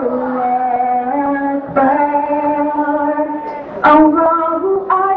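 A woman singing a slow devotional children's song, holding each note for a second or two and stepping in pitch from note to note.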